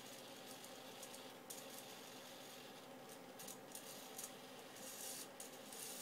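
Very quiet room tone with a few faint, scattered clicks and rubbing sounds, a little busier near the end.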